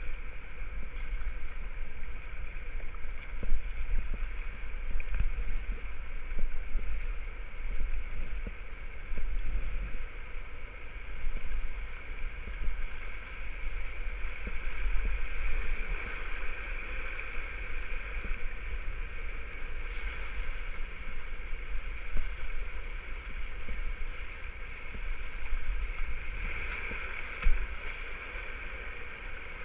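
River rapids rushing and splashing around a whitewater kayak as it is paddled through, with water breaking over the bow and irregular splashy peaks from the waves and paddle strokes. A steady low rumble runs underneath.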